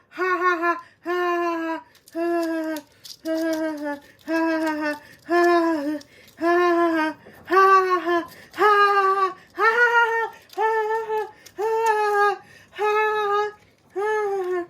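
A voice singing or humming a run of short, separate notes, about one a second, the pitch moving up and down from note to note like a simple tune.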